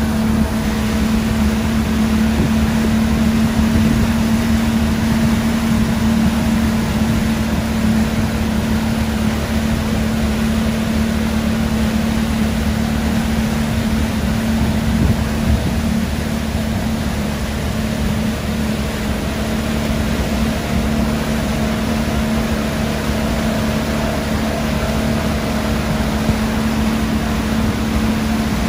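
Tow boat's engine running steadily at constant speed: a continuous hum over low rumble and a steady rushing noise.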